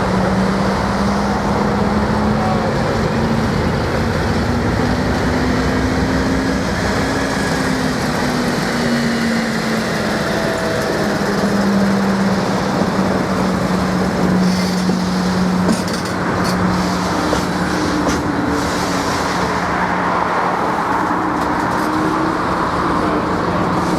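Diesel locomotive engine running steadily with a low hum whose pitch climbs slowly over the first several seconds and then eases back down, over a steady hiss.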